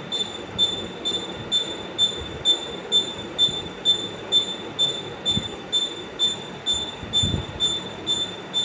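A rotating device squeaking in a steady rhythm, one high squeal about every half second, over a low rumble.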